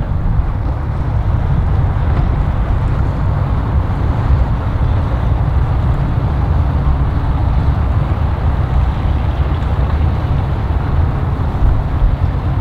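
Mercury outboard motor on a bay boat running at low idle while the boat is eased off the dock, under a steady low rumble of wind on the microphone.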